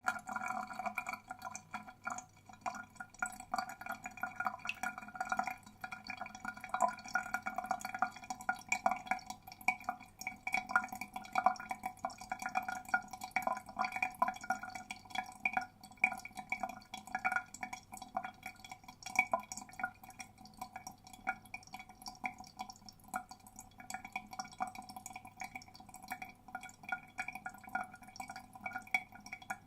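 Water draining: a continuous, rapid, irregular gurgling and dripping.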